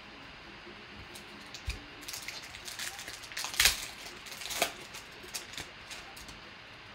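Foil wrapper of a 2017 Panini Collegiate Elite football card pack being torn open and crinkled by hand: a run of sharp crackles and rips, loudest about three and a half seconds in and again a second later, fading out near the end.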